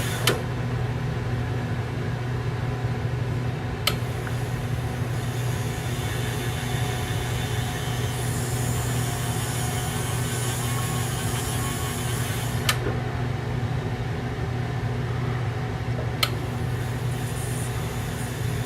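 Electric motor of a graver-sharpening machine running steadily with a low hum while a graver is honed against its spinning rubber wheel. Four short sharp clicks stand out: near the start, about four seconds in, and twice later on.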